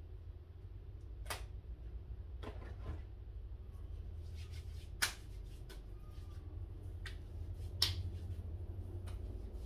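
Scattered sharp clicks, about eight, irregularly spaced, from a small yellow plastic object being handled and worked between the fingers, over a steady low hum.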